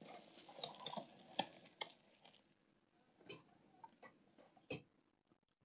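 Faint handling of a cardboard parcel and its packing as it is opened and emptied: soft rustling and a handful of light taps and clicks.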